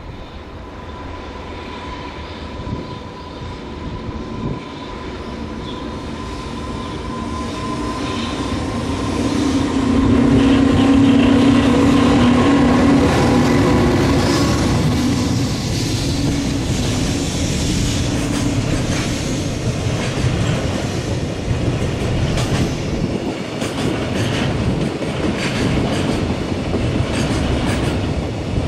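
Freight train hauled by an electric locomotive passing close by. A steady whine grows louder and peaks about ten seconds in as the locomotive goes by. After that the wagons' wheels rattle and click over the rail joints in a steady rhythm.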